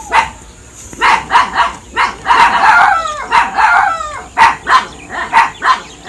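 Dogs barking in short, sharp barks: one near the start, a quick run of barks from about a second in, and two more near the end.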